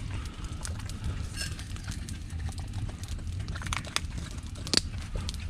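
Open wood fire crackling, with a steady low rumble and scattered sharp clicks, and a light ringing clink about one and a half seconds in from the coffee container and enamel mug being handled.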